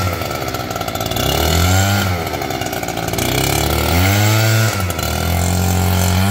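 Professional gas leaf blower's engine running at high throttle, eased off and opened up again a couple of times so its pitch dips and rises, then held steady near the end.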